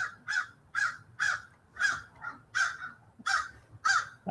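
A crow cawing, a run of about eight caws at roughly two a second.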